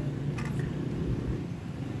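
Low, steady rumble of road traffic, with one light click about half a second in.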